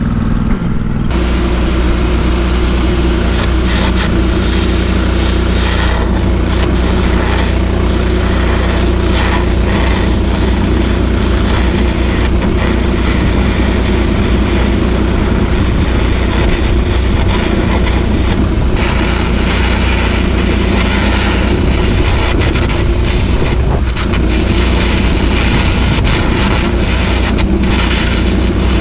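A welding arc crackling and hissing on the steel of a cracked Caterpillar excavator boom. It strikes about a second in, over the steady hum of an engine-driven welding machine.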